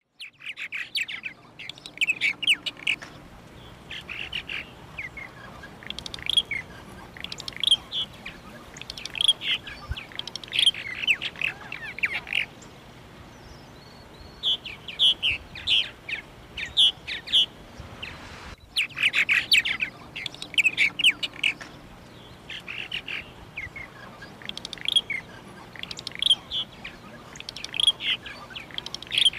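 Birds chirping and calling in repeated bursts of short, high notes, with a brief cut-off about two-thirds of the way through.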